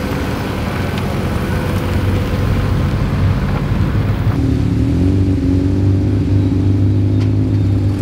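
BMW E46 330 rolling past at low speed, its engine and tyres making a broad, rough sound. About four and a half seconds in the sound changes abruptly to a steadier car engine note running at low revs.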